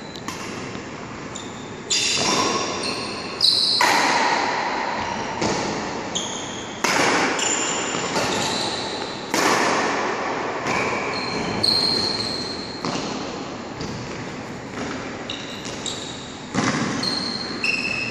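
Badminton rally: sharp racket hits on the shuttlecock every one to three seconds, each ringing out in a large, echoing hall, with short high shoe squeaks on the court mat between hits.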